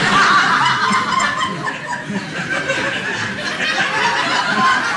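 Audience in a hall laughing loudly and continuously at a comic stage moment.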